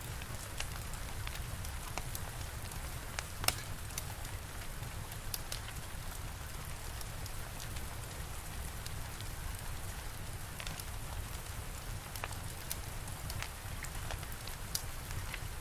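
Steady rain with the irregular sharp crackles and pops of a wood fire; one pop about three and a half seconds in is louder than the rest.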